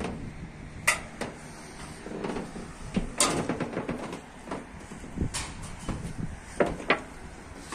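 Sharp knocks and clacks from steel tile roofing sheets flexing and being struck under workers' feet, about seven of them at irregular intervals, some in quick pairs, over a low steady rumble.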